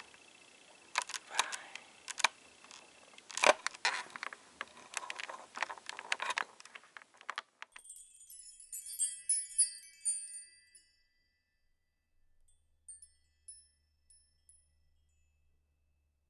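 A run of irregular clicks and knocks close to the microphone, then a short, high, twinkling chime jingle that fades into a few scattered tinkles.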